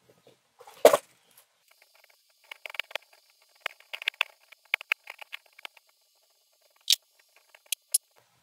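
Small clicks, taps and scratches of hand tools working on the trimmer's circuit board and red battery wire during desoldering and cleaning. There is a louder click about a second in, a run of small ticks in the middle, and a few sharp clicks near the end.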